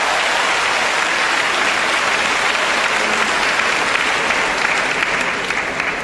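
Crowd applauding a won point. The applause holds steady, then starts dying away near the end.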